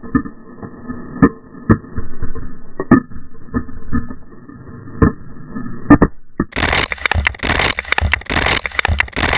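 Hockey rink board glass shattering and broken glass crunching, heard through a helmet camera. First a series of muffled sharp cracks and knocks, then from about six and a half seconds in a bright, dense clatter of crunching and scraping.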